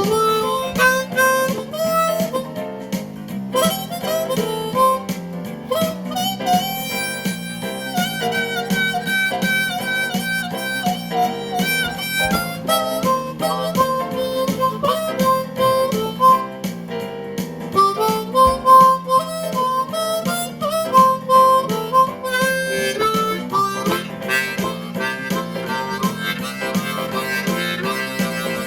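Blues harmonica playing a melody of held and bent notes over a steady, rhythmic acoustic guitar accompaniment.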